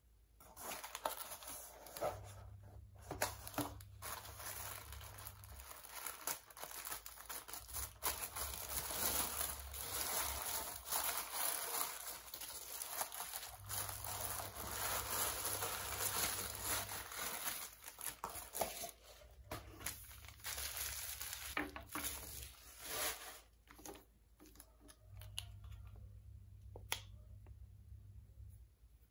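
Tissue paper and parcel packaging crinkling and tearing as a box is unpacked by hand, dying down near the end.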